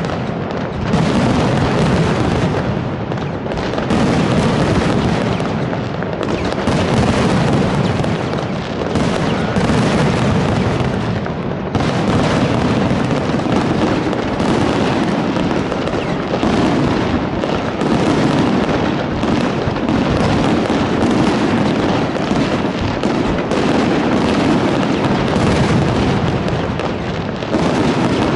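Fireworks salute: a dense, continuous barrage of bursts and booms with no pauses.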